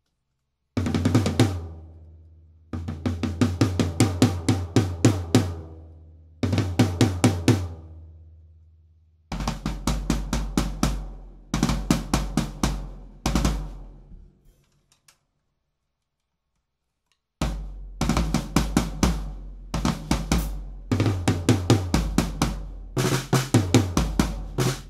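Drum kit played in a run of quick fills and grooves, rapid strokes in phrases of a few seconds each, with short breaks between them. There is a silence of about three seconds a little past the middle, after which the playing runs on without a break.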